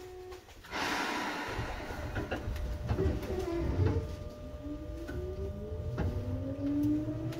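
Seibu 2000 series electric train, heard from a motor car under the floor equipment, pulling away. A short tone sounds right at the start and a burst of hiss follows about a second in. Then, from about halfway through, the traction motor and gear whine climbs steadily in pitch as the train gathers speed, with sharp clicks scattered throughout.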